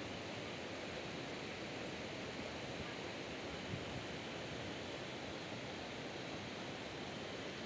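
Steady, even rushing outdoor noise with no distinct events standing out.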